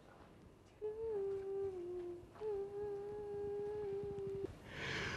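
A person humming a tune in two long, mostly held notes, with a short breathy sound near the end.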